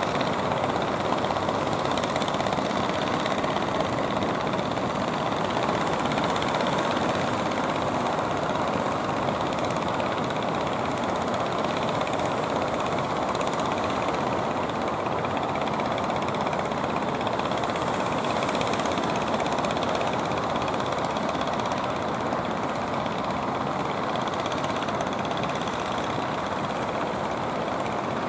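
Engines of several fishing boats running steadily as outrigger boats and larger fishing vessels motor past, blended with the wash of the sea.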